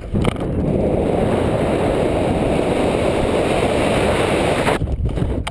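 Rushing air blasting over the camera's microphone during a rope-jump free fall: a loud, steady rush that sets in just after the start and cuts off abruptly near the end.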